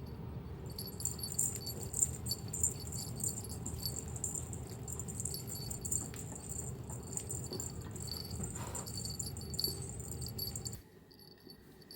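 Small metal objects jingling and rattling in quick, irregular shakes over a low steady rumble. The sound cuts off suddenly near the end.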